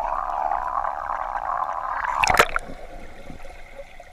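Pool water gurgling and sloshing against a camera held at the waterline, then a loud splash about two seconds in as a child jumps into the pool, after which the sound goes dull and muffled underwater.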